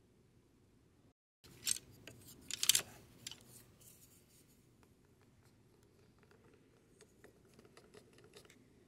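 Small plastic dressing cup and meal-prep container being handled on a countertop: a cluster of sharp plastic clicks and crackles about two to three seconds in, then softer scattered clicks.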